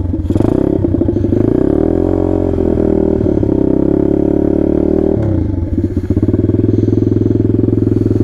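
Taotao DB17 125 pit bike's single-cylinder four-stroke engine running with its idle freshly adjusted. About two seconds in it revs up and holds there for a few seconds, then drops back to a steady idle.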